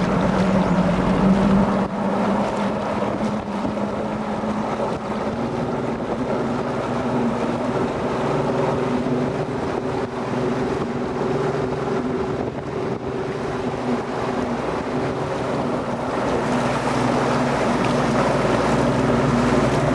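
A Skeeter bass boat underway at speed: its outboard motor runs steadily while water rushes along the hull and wind buffets the microphone. The engine note shifts and eases slightly about two seconds in.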